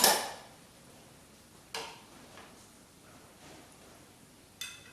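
Kitchen utensil clattering and clinking against dishes while plating: a loud clatter at the start, then two single sharp clinks, the second ringing briefly.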